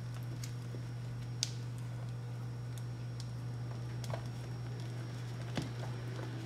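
A spatula stirring and folding stiff, gelatin-set cream in a bowl, with scattered light clicks as it knocks the bowl, the sharpest about a second and a half in and again near the end. The cream is hard to mix because too much unflavoured gelatin has set it firm. A steady low hum runs underneath.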